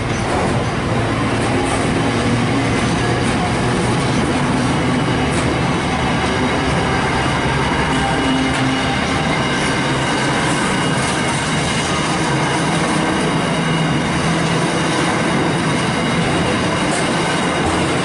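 Wagons of a container freight train rolling past on the rails, a steady loud run of wheel and rail noise.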